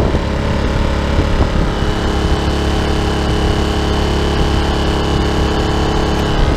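Dirty Hand Tools 800-watt inverter generator's small engine running steadily, with a thin high whine from about two seconds in until shortly before the end.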